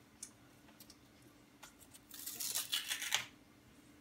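Baking paper and crisp oven-baked potato chips rustling and crinkling as they are picked over on a baking tray: a few light clicks, then a short spell of dense crinkling about two seconds in, over a faint steady hum.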